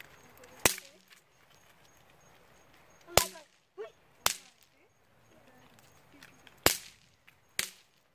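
Party snaps (bang snaps) thrown onto the asphalt road, each going off with a sharp pop; five pops at uneven intervals, the last one weaker.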